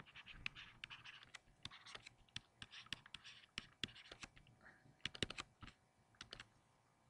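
Faint stylus strokes on a tablet PC screen while writing a short line by hand: quick taps and brief scratchy strokes, with a tight cluster of clicks about five seconds in.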